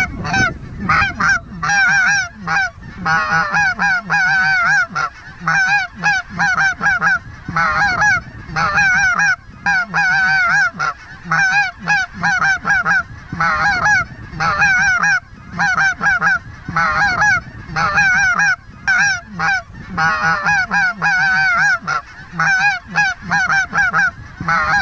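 Snow goose call blown loud and fast: a near-continuous string of short, warbling, goose-like squawks, several a second with only brief breaks. It imitates snow geese to draw in a flock.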